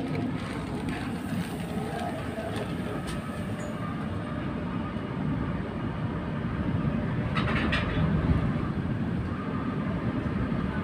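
Tram running on rails, heard from inside the car: a steady low rumble of wheels and running gear. It grows a little louder about six seconds in, with a brief rattle about seven seconds in.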